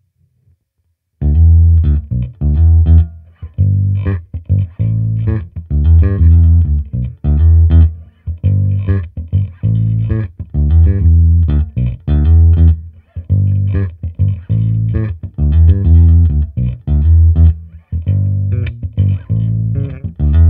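Music Man StingRay 5 five-string electric bass played through a Hand Box WB-100 all-tube bass amplifier (ECC83 preamp, 6L6 power tubes) and miked bass cabinet. It plays a riff of short, separated low notes with brief gaps between phrases, starting about a second in.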